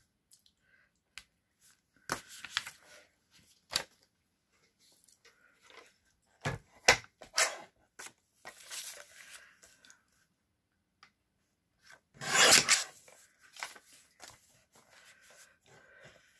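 Sheets of paper being handled: rustling and sliding, with scattered light knocks and taps on the craft table. The loudest rustle comes about twelve seconds in.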